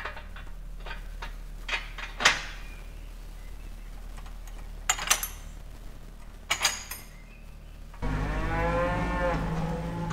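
A few sharp metal clanks and knocks as a steel toolbox frame is handled onto a tractor's front linkage, then a cow mooing loudly from about eight seconds in, one long call that runs on.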